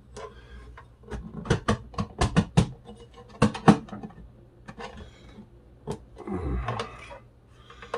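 Hard plastic clicks and knocks as the black iron holder is pushed and worked onto the plastic housing of a Merece ST-2090D soldering station. The sharp taps come one after another, with a short stretch of scuffing and rubbing near the end.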